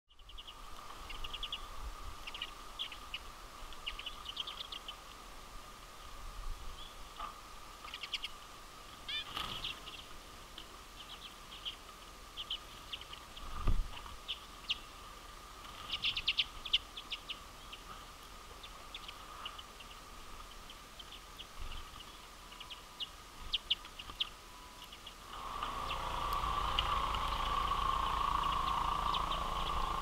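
Common redpolls twittering in a flock: many short, high chirps in quick clusters over a faint steady hum. Near the end the background grows louder, with a low rumble under the chirps.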